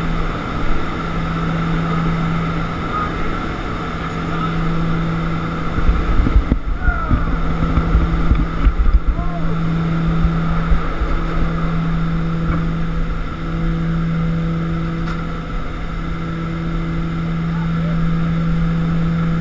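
Steady drone of a Short Skyvan's twin Garrett TPE331 turboprops heard from inside the cabin, over rushing wind through the open rear door. About six seconds in, heavy wind buffeting hits the microphone for a few seconds.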